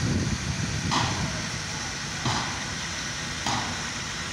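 Fire engines' diesel engines running steadily, with a short sharp noisy pulse repeating about every second and a quarter.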